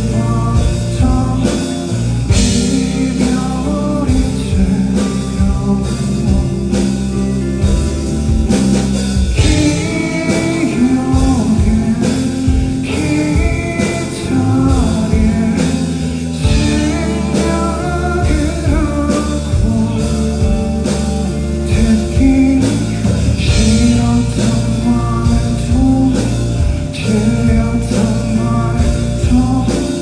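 Live band performance: a man singing in Korean into a microphone over a hollow-body electric guitar and a drum kit.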